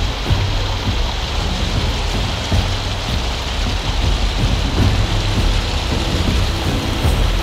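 Heavy rain falling steadily as a dense, even hiss, with a constant low rumble underneath.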